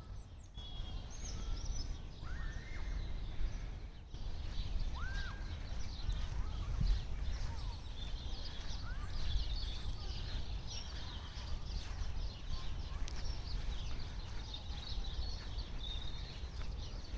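Several small birds chirping and singing, with many short high notes and a few arched whistles, over a steady low rumble of background noise.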